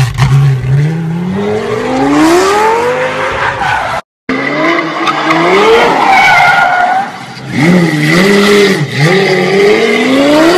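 Car engine revving hard, its pitch climbing and falling again and again, with tyres squealing as the car slides in circles. The sound breaks off for a moment about four seconds in.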